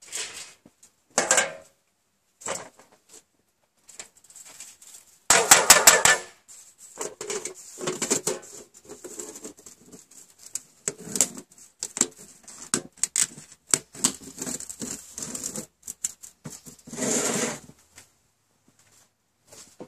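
Metal popcorn tin and its lid clattering and scraping as the lid is worked back on to snuff the still-smoldering char cloth inside, with the loudest run of rapid metal clinks about five seconds in. Dry leaves rustle briefly near the end.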